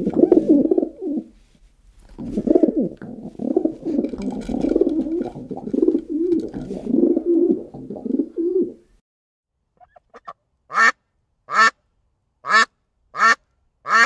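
White dove cooing in low, rolling coos for the first nine seconds or so. After a short pause, a duck gives five short, sharp quacks, about one every 0.8 s.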